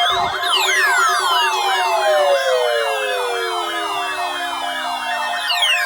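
Weather alert radios sounding their alarms, set off by the NOAA weekly tone-alert test: a siren of fast, evenly repeating falling sweeps, about three a second, over steady tones, with several long glides sliding slowly downward in pitch.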